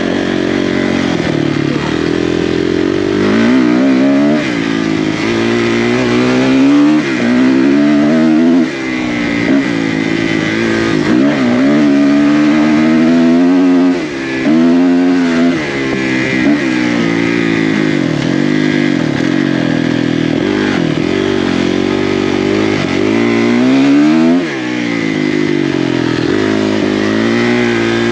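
Off-road motorcycle engine revving hard under race riding. Its pitch climbs and falls again and again as the rider accelerates and backs off, with brief drops in level about 9, 14 and 24 seconds in where the throttle is rolled off.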